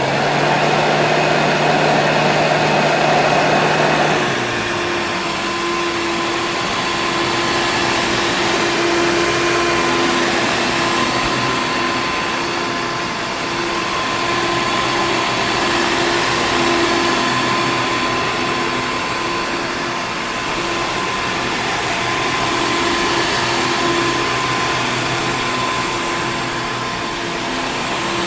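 Vacuum cleaner running with a steady whirring hum; about four seconds in its motor tone drops a little in pitch and level, then it runs on evenly.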